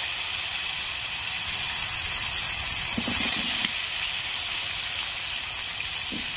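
Cut potatoes sizzling in hot oil left from frying fish: a steady, even hiss. A single light click about three and a half seconds in.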